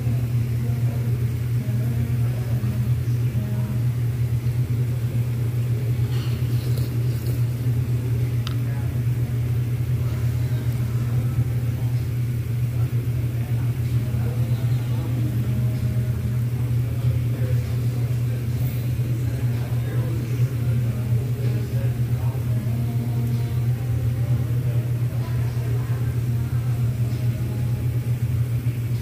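A steady, loud low rumble at a tabletop Korean barbecue grill, with faint voices in the background.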